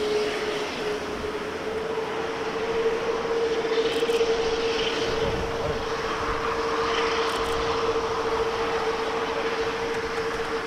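Jet airliner engines running with a steady whine over a broad rush of noise.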